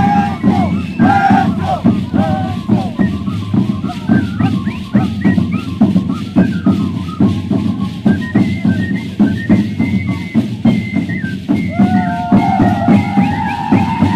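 Shacshas dancers' leg rattles of dried seed shells shaking together in a fast, even rhythm with their steps, over a high, wavering melody that holds longer notes near the end.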